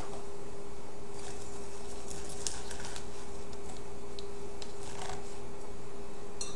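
Kale and salad greens rustling and crackling as they are pressed by hand into a blender cup, in a few short bursts over a steady hum.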